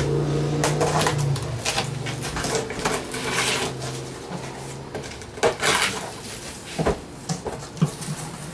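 A knife slicing through packing tape on a large cardboard box, then the box's flaps being pulled open, with a series of short cardboard scrapes and rustles. The loudest come about five and a half seconds in. A low hum runs under the first few seconds and fades out.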